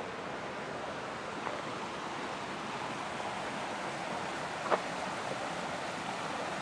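A small mountain creek flowing steadily, a constant rushing of water, with one brief click a little after the middle.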